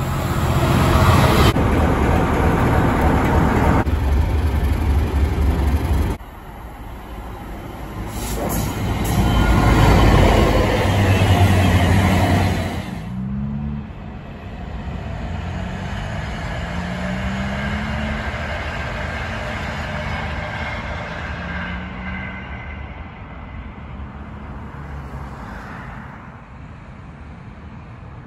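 Class 66 diesel freight locomotive running loud as it hauls container wagons past, with a deep engine note and heavy rumble. After a break a second loud rumble swells and fades, then the sound drops to a fainter, more distant engine rumble with short rising notes.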